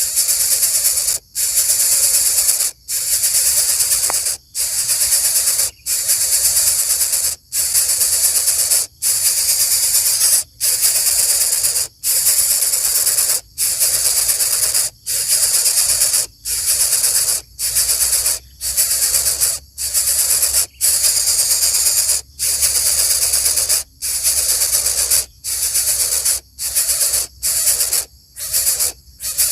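Coucal chick hissing, a long harsh hiss roughly every second and a half with brief breaks between them, the breaks coming quicker near the end.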